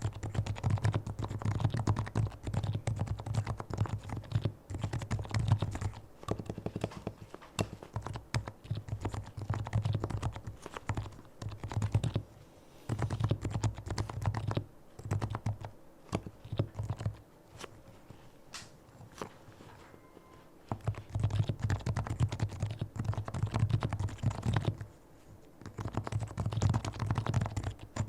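Fully lubricated Leopold FC660C Topre electrostatic-capacitive keyboard being typed on in fast runs of keystrokes, with a few short pauses and a longer, lighter stretch a little past halfway.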